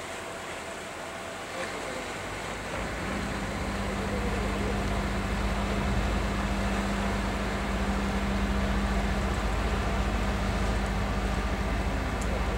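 An engine running nearby: a low drone with a steady hum that builds up over the first three or four seconds and then holds level.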